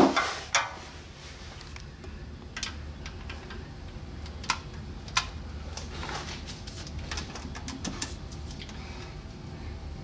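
A knock at the start, then sparse, sharp metallic clicks and clinks of a ratchet, long extension and socket being handled and set onto the transmission drain plug, over a faint steady low hum.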